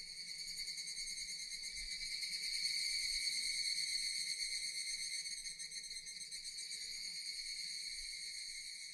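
Japanese cicadas droning steadily in a high-pitched chorus, swelling a little toward the middle and easing off near the end.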